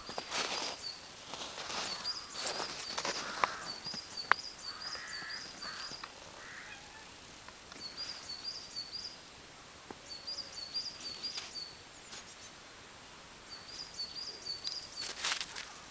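Small songbird singing short phrases of rapid high chirping notes, repeated several times with pauses between. Crunching and rustling in snow near the start and again near the end.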